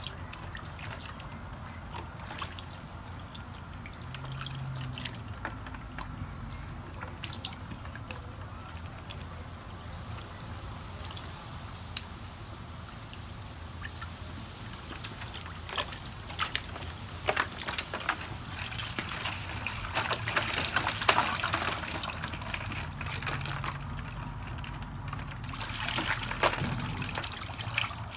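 A husky splashing in a plastic kiddie pool, pawing at the water with its front paws and dipping its muzzle in; water sloshing, trickling and dripping, with irregular splashes that grow busier in the second half.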